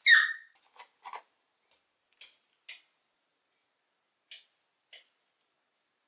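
Ingredients being set into a pot and a plastic sauce packet handled: a brief loud squeak falling in pitch at the start, then soft scattered taps and rustles.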